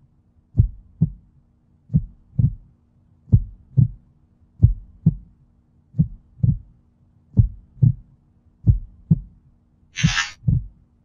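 Slow heartbeat-style thumping: low double beats, a pair about every second and a half, over a faint steady hum. About ten seconds in comes a short hissy click as the boombox is switched on.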